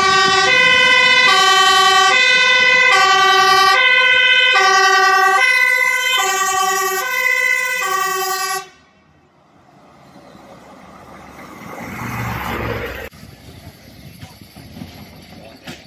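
Fire engine's two-tone siren, switching back and forth between a lower and a higher pitch about every 0.8 s, cuts off suddenly about eight and a half seconds in. After it, the rumble of the approaching fire truck grows louder and breaks off abruptly near the end.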